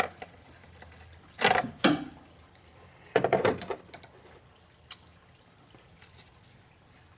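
Plastic PCV valve scraping and creaking in two short bursts as it is pressed down and twisted into its housing with a hand tool, with a few light clicks between.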